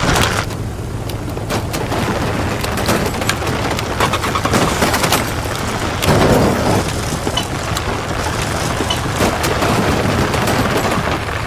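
Dubbed-in stock sound effects for an RC truck clip: a steady low rumble under scattered crackling and clicking, with a louder surge about six seconds in.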